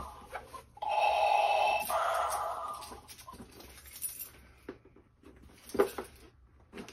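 Tape being ripped off a small cardboard shipping box: a couple of seconds of tearing about a second in, then scattered light taps and rustles as the cardboard is handled.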